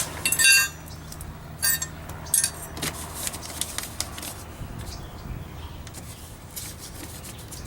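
Metal clinks and rattles of a car door's mounting bracket and its hardware being handled and fitted, loudest in the first second and twice more around two seconds in, then faint handling noise.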